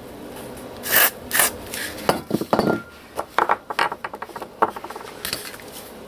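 A black plastic angled heater-hose coupler and its wire retaining pin being handled on a wooden workbench. Two short scraping rubs come about a second in, then a run of small clicks, knocks and rattles of hard plastic and metal against the wood.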